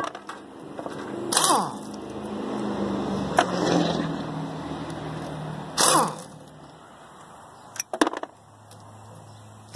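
Metal clanks from hand tools striking parts of a scrap car engine as it is torn down: four sharp knocks a couple of seconds apart, two of them ringing briefly, over a low steady hum.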